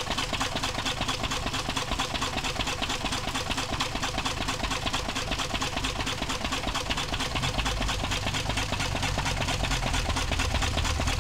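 1942 Lister 3½/1 CS single-cylinder diesel stationary engine running steadily with a regular rapid beat. Its low thud grows stronger in the second half.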